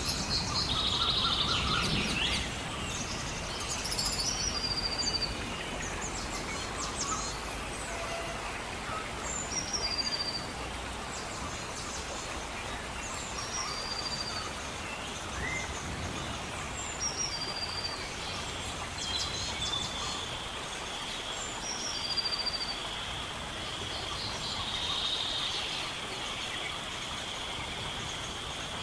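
Birds calling over a steady background hiss. One bird gives a short call about six times, every three to four seconds: a quick falling note, then a brief high whistle. A steady high drone comes in about two-thirds of the way through.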